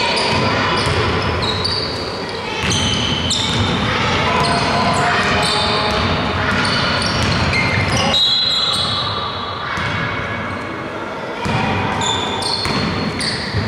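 Live basketball play in a sports hall: the ball bouncing on the court, many short high squeaks, and players' voices calling out, all echoing in the gym.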